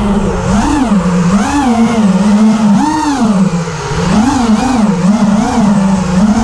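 Brushless motors and 5-inch propellers of an FPV racing quadcopter whining, the pitch rising and falling over and over as the throttle is worked.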